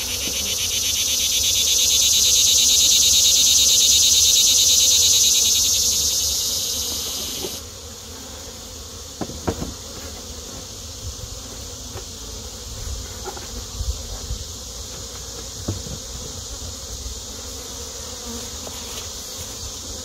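A cicada's loud high-pitched buzzing call swells over the first few seconds, then cuts off abruptly about eight seconds in. A fainter steady high insect hum follows, with a few light knocks of wooden hive boxes being fitted together.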